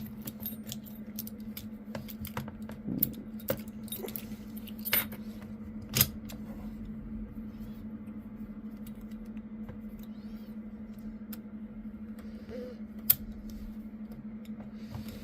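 Keys jangling and clicking against a Master Lock padlock as a key is tried in the lock and fails to open it. Several sharp clicks come in the first six seconds and one more near the end, over a steady low hum.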